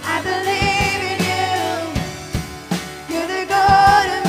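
Live worship band music: a drum kit played under sustained held chords, with a woman singing into a microphone.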